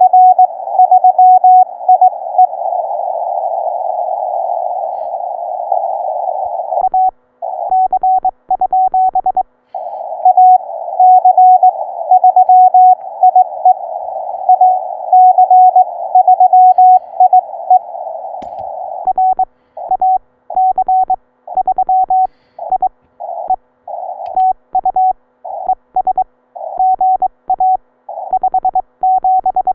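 Morse code (CW) heard through a Ten-Tec Eagle transceiver: a single-pitched beep keyed in dots and dashes over a narrow band of hiss. About seven seconds in, and again from about nineteen seconds on, the keying turns choppy, with the hiss dropping out between characters.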